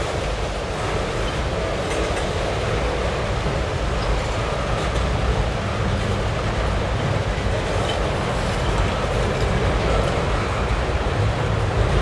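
Freight train tank cars rolling across a steel girder bridge: a steady rumble and rattle of steel wheels on rail, with a few faint clicks.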